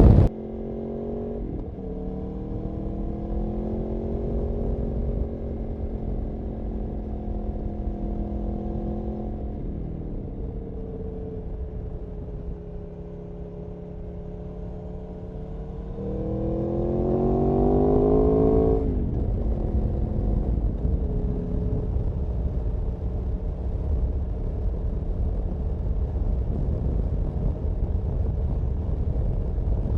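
Aprilia Tuono V4 motorcycle engine running on the road, its note holding steady before settling lower about ten seconds in. Just past the middle it revs up sharply over about three seconds, then drops off abruptly and carries on at a steady pace.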